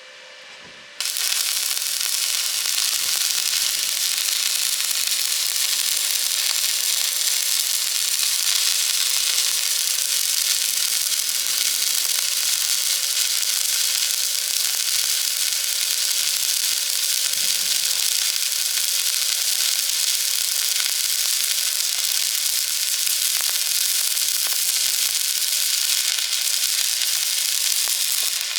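Electric arc welding: the arc strikes about a second in and then burns steadily with a constant sizzling, crackling hiss as a bead is laid.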